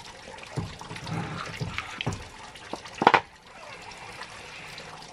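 Lemonade being sipped through a straw from a plastic tumbler: a few irregular sucking, liquid slurps, the loudest about three seconds in.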